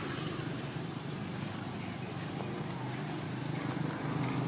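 A steady low engine hum that grows louder near the end.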